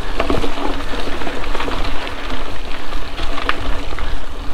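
Mountain bike rolling over a dirt trail: tyres crunching on the ground and the bike rattling and clicking over bumps, with wind buffeting the microphone.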